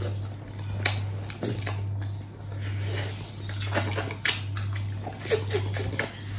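Close-up eating sounds: wet chewing and sharp lip smacks at irregular intervals as buffalo trotter meat is eaten.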